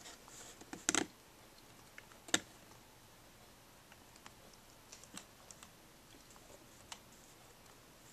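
Keys pressed on a Dell Inspiron 1545 laptop keyboard: a quick cluster of key clicks about a second in, then a few single, spaced-out clicks.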